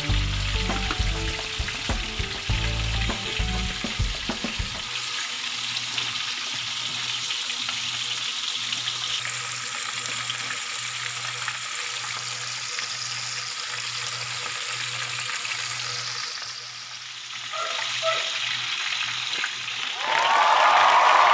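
Breaded chicken pieces deep-frying in hot oil in a pan, a steady sizzling hiss. Near the end a louder, different sound cuts in.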